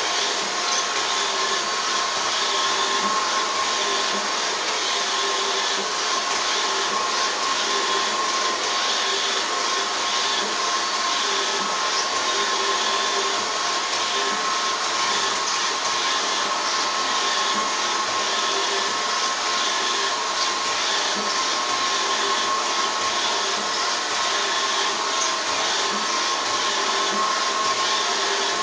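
Robot vacuum cleaner running steadily: a constant motor whine over the hiss of its suction.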